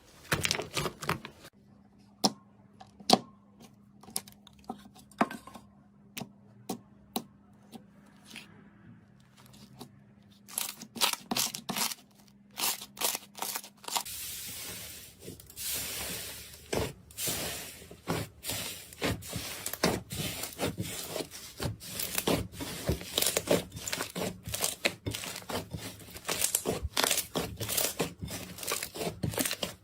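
Slime being pressed and squeezed by hand: sparse sticky pops and clicks at first, then dense crackling and popping from about halfway.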